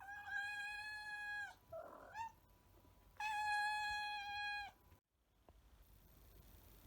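Cat meowing: two long, level meows of about a second and a half each, with a short rising chirp between them. The sound cuts off suddenly about five seconds in.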